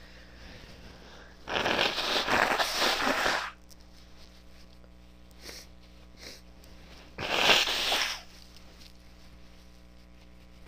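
Two loud, noisy blasts of air from a woman's nose, the first lasting about two seconds and the second, about four seconds later, about one second.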